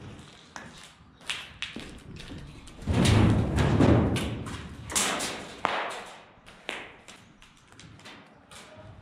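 Airsoft exchange of fire indoors: a run of sharp cracks and knocks, with a heavy thud about three seconds in that dies away over a second, and another loud crack about five seconds in.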